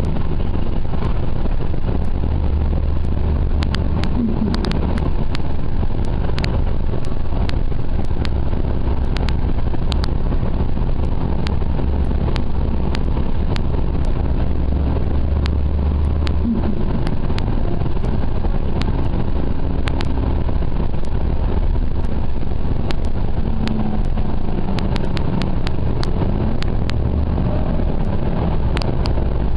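Orion VII transit bus with a Cummins C Gas Plus CNG engine and Voith DIWA automatic transmission, heard from inside the cabin while driving: a steady low rumble, with a whine that glides up and down in pitch several times as the bus speeds up and slows. Frequent light clicks and rattles sound throughout.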